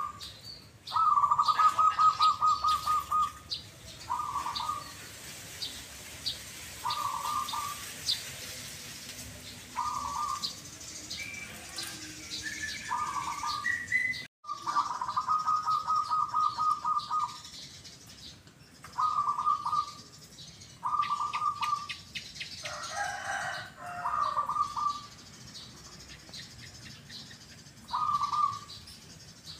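Zebra doves (perkutut) cooing in repeated short rolling 'kuk' phrases at a mid pitch. Two longer, rapidly pulsed trills come about a second in and again about halfway through. Faint high chirps sound between the coos.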